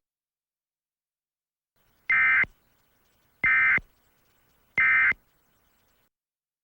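Emergency Alert System end-of-message data tones: three short identical bursts of digital data signal, about a second and a half apart, marking the end of the alert.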